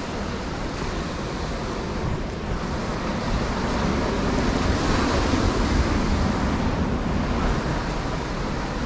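Ocean surf rushing on the shore, a dense noisy wash that swells about halfway through and then eases off, with wind.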